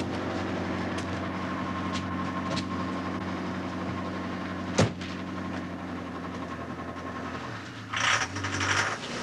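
A steady engine hum, with a sharp click about five seconds in and a short burst of noise near the end.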